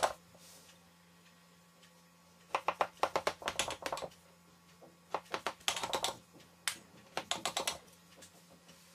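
Knife blade cutting through the stacked thin layers of raw baklava dough in a round metal tray, three runs of quick crisp clicks and scrapes, under a faint steady hum.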